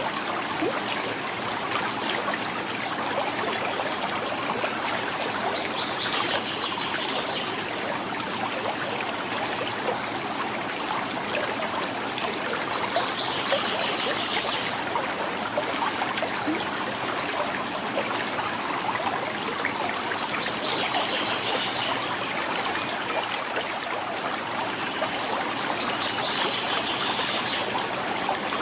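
Quiet river flowing, a steady gurgling and trickling of water.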